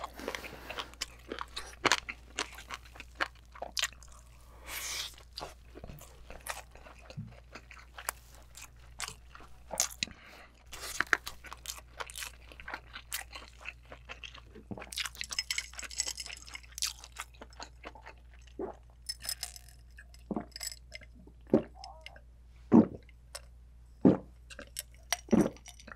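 Close-miked eating of spicy braised giant abalone and seafood: wet chewing with many short crunching clicks as the firm abalone, bean sprouts and sea squirts are chewed. Near the end come a few louder separate gulps as he drinks.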